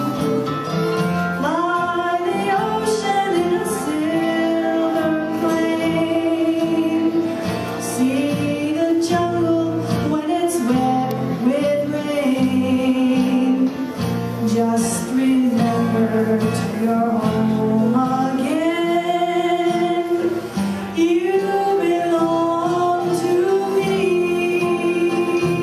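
A woman singing a slow melody into a microphone, holding long notes with vibrato, backed by a small acoustic country band: strummed acoustic guitar and upright bass.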